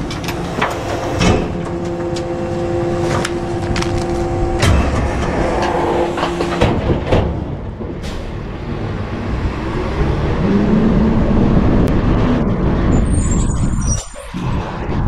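Garbage truck running, with a steady whining hum for about the first seven seconds that then stops, sharp metallic knocks and clanks, and the engine rising and falling in pitch near the end.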